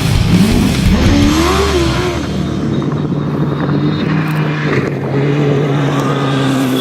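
Off-road race vehicle engine revving, its pitch rising and falling over the first two seconds, then running at a steadier, lower pitch.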